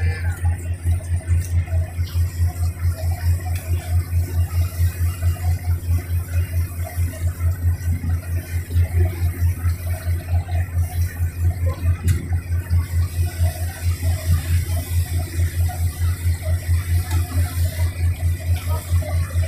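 Riverboat engine running steadily, a low throb pulsing in a fast, even beat.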